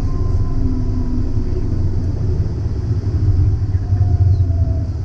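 Cockpit noise of a Cessna Citation CJ3 business jet rolling down the runway after touchdown: a steady low rumble of the wheels and airframe under the jet engines, with a faint whine over it.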